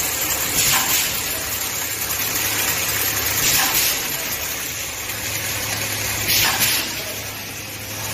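Automatic safety-net hemming and sewing line running with a steady machine hum, broken by three short hisses of air about three seconds apart.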